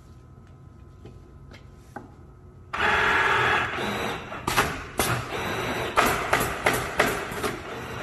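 Allio automatic canvas stretching and stapling machine starting its cycle: a sudden loud hiss of compressed air from its pneumatic cylinders about three seconds in, then a rapid run of sharp clacks, roughly two a second, as it drives staples through the canvas into the wooden frame. Before it starts, only a low machine hum.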